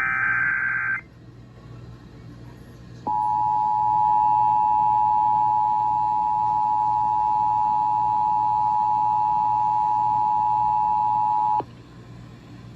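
Emergency Alert System broadcast: the last of the three buzzy digital SAME header data bursts lasts about a second. After a two-second gap comes the EAS attention signal, the steady two-tone alarm of 853 and 960 Hz, held about eight and a half seconds before it cuts off. It announces a severe thunderstorm warning.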